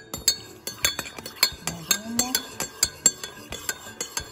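Metal spoon clinking rapidly against the inside of a ceramic coffee mug while stirring milk into coffee, about four or five ringing clinks a second.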